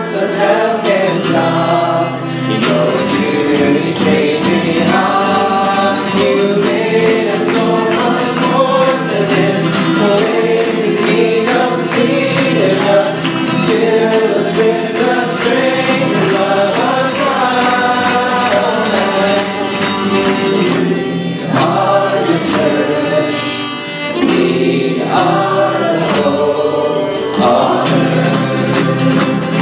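Mixed group of men and women singing a Christian worship song together, accompanied by strummed acoustic guitars and a bowed violin.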